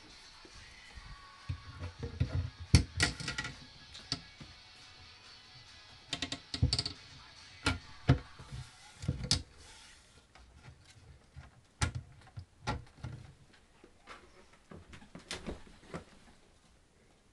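Rock music playing in the room, with irregular sharp knocks and clicks over it, clustered in the first ten seconds and thinning out after.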